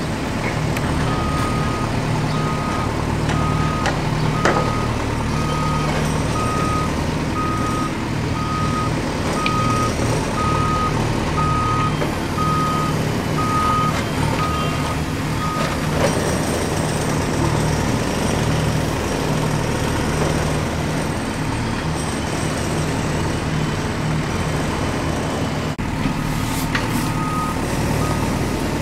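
Vehicle reversing alarm beeping at an even pace, about three beeps every two seconds, over a steady engine rumble. The beeping stops a little past halfway and comes back briefly near the end.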